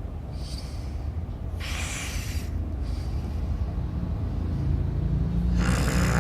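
Dog snoring: a steady low rumble with hissing breaths about half a second in, around two seconds in, and again near the end.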